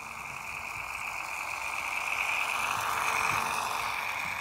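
Märklin H0 scale model rail bus running past on snowy track. The small electric motor hums steadily, and the wheels run on the rails. The sound grows louder as the model comes close, peaks about three seconds in, then fades as it moves away.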